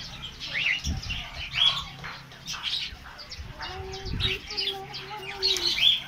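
Budgerigars chirping and chattering, many short high chirps overlapping. Two dull low thumps, about one second in and about four seconds in.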